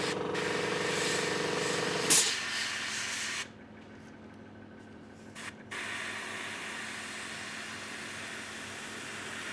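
Airbrush compressor running with a steady mechanical hum under the spray hiss, cutting out about two seconds in with a short, loud puff of air. The airbrush hiss carries on briefly, stops for about two seconds, then starts again steadily as spraying resumes.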